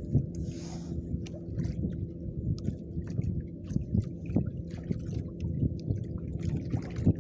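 Boat engine running steadily at low speed, with water slapping and splashing against the hull in short irregular knocks.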